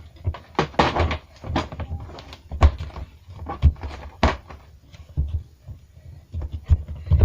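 Irregular knocks and thumps, a few to each second, the loudest coming about a third and halfway through.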